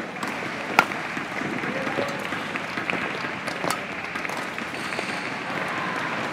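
Badminton rally: a few sharp smacks of racket strings striking the shuttlecock, the loudest about a second in and another near four seconds, over the steady murmur of the crowd in the hall.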